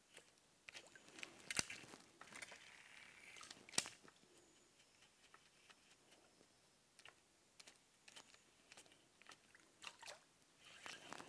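Near silence broken by scattered small clicks and ticks, with two sharper clicks in the first four seconds, from fishing rod-and-reel handling as a topwater frog lure is worked across the water.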